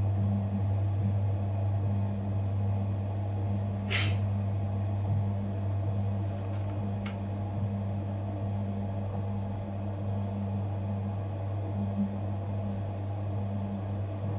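Electric dough mixer running with a steady low hum while it kneads a large batch of bread dough. A brief hiss about four seconds in.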